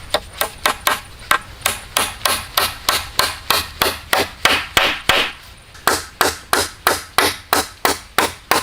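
Hammer strikes in a steady, quick rhythm, about three to four blows a second, with a short break about two-thirds of the way through.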